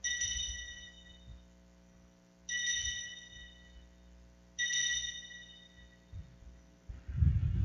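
Altar bell (Sanctus bell) rung three times, about two and a half seconds apart, each ring a bright cluster of high tones that fades over a second or so: the signal for the elevation of the chalice at the consecration. A dull knock and rustle follow near the end.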